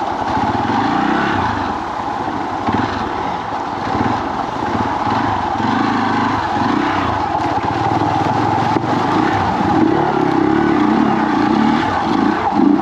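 Dirt bike engine running as it is ridden over rough off-road ground, the engine note swelling and easing with the throttle.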